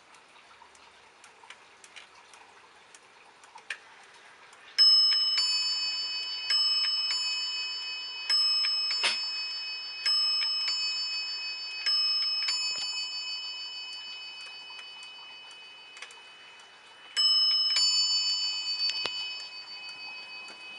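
Rhythm electromechanical pendulum wall clock striking its two brass bells in ding-dong pairs: five pairs at an even pace, then one more pair after a pause, each stroke ringing on and fading slowly. Faint ticking of the pendulum movement comes before the chime.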